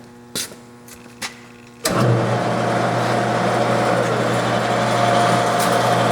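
Lockformer Quadformer sheet-metal rollformer starting up about two seconds in, its 3 hp single-phase electric motor then driving the forming rolls with a loud, steady running noise and hum. Before it starts there is a low electrical hum and a couple of clicks.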